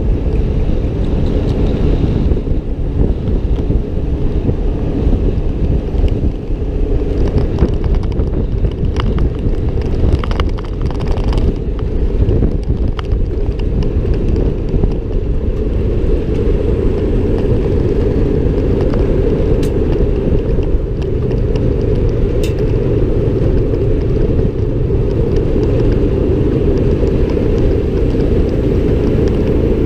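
Open farm vehicle driving along, its engine running steadily under a heavy low rumble of wind and road noise.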